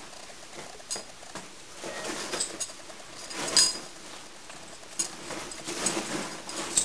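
Two Airedale terriers play-fighting on a giant beanbag: rustling and scuffling with many short clicks and knocks. The loudest knock comes about three and a half seconds in, and the scuffling thickens near the end.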